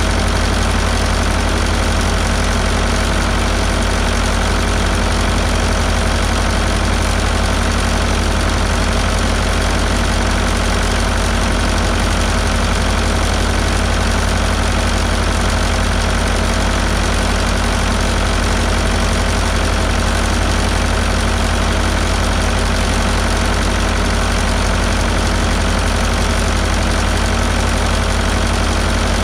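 Fordson Major tractor's four-cylinder diesel engine idling steadily while it warms up toward 180 °F, the temperature at which its tappets are to be set hot.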